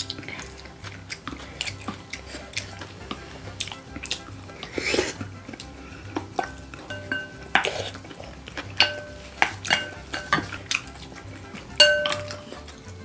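Wooden spoons knocking and scraping against glass bowls and earthenware pots as rice is mixed and eaten: many small clinks and taps, some ringing briefly, with the loudest clink about twelve seconds in.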